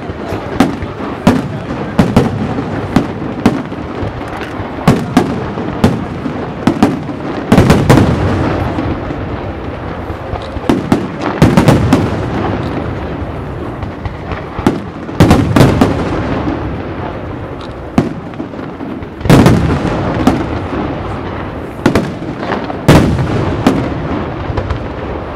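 Aerial fireworks display (a Valencian castillo by Pirotecnia Martí): a steady run of sharp shell reports over continuous crackling, with about five heavy booms a few seconds apart that rumble on after each burst.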